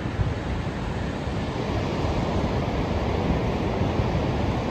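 Steady rush of ocean surf mixed with wind buffeting the microphone, a rumble that rises and falls low down.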